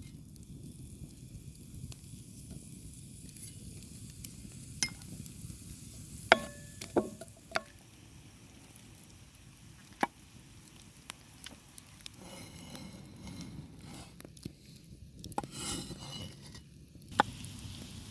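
Cooking in a pan: a quiet steady sizzle while a utensil stirs and scrapes, with a cluster of sharp, ringing clinks of metal on the pan about six to eight seconds in and a few single clicks later.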